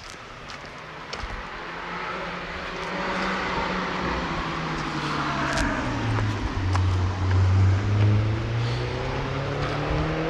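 A motor vehicle's engine running and growing louder as it draws near, loudest about three-quarters of the way through.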